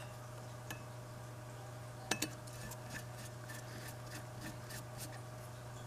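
Faint, light metallic clicks and taps from metal motor parts being handled, the clearest about two seconds in, over a steady low hum.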